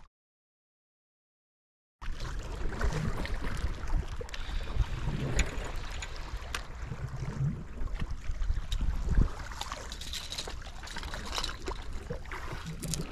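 Seawater lapping and splashing against a concrete breakwater, with many small irregular ticks and splashes. The first two seconds are dead silent.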